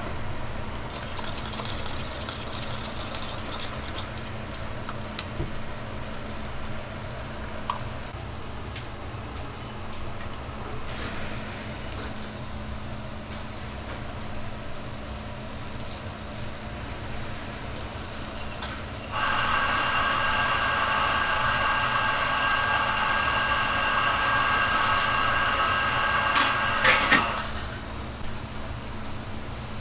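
Cooking at a flat-top griddle over a steady low hum, with occasional clicks and light clatter. About two-thirds of the way through, a loud steady hiss starts abruptly, runs about eight seconds, and cuts off with a few sharp clicks.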